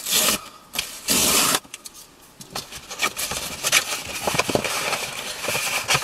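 Cardboard mailing envelope being ripped open: two loud tearing rips about a second apart, then a crackling rustle of the card and packaging being handled.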